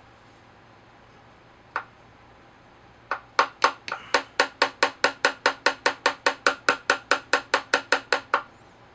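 A hammer tapping a metal pin into the trigger housing of a KalibrGun Cricket PCP air rifle. There is one single tap, then a little over a second later a quick, even run of sharp metal-on-metal taps, about four or five a second, which stops suddenly.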